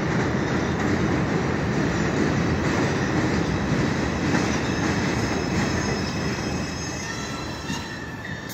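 New York City subway 5 train of R142 cars pulling into an elevated station, a steady dense rumble of wheels on the steel structure. From about halfway through, a high metallic squeal comes in and grows as the train slows.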